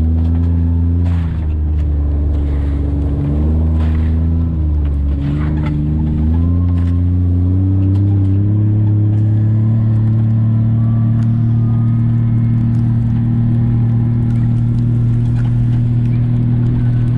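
ATV engine running while driving. Its pitch climbs and falls several times in the first few seconds as the speed changes, then holds steady at a slightly higher speed for the rest.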